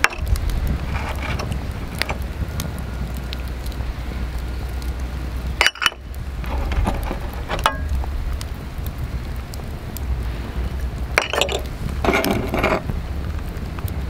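Hot fat sizzling in a black steel frying pan, with clinks and scrapes of a small stainless cup and utensil against the pan. There are louder bursts of sizzling about six seconds in and again near the end, as more is added to the pan.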